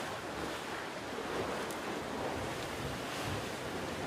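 Steady rush of open-ocean waves and wind.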